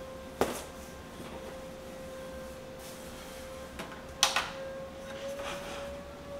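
A steady electrical hum with two sharp knocks of things being handled, one about half a second in and a louder one about four seconds in, with a few softer clicks after.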